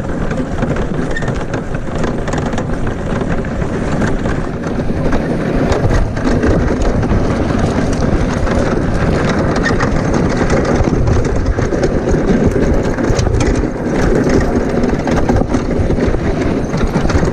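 Gravity kart rolling downhill over a gravel track: a loud, steady rumble of its wheels on the stones, with constant rattling and clattering of the kart's frame.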